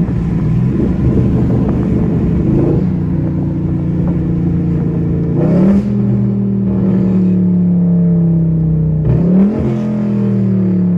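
Dodge Charger Scat Pack's 392 Hemi V8 on E85, heard through open windows while driving. The engine runs steadily under way, and twice, about halfway through and near the end, the revs jump sharply with a short blip as the transmission downshifts, then slowly fall away.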